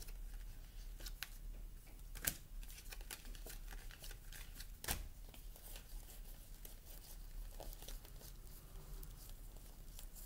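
A deck of tarot cards being shuffled in the hands: faint, irregular flicks and rustles of cards, with two louder snaps about two and five seconds in.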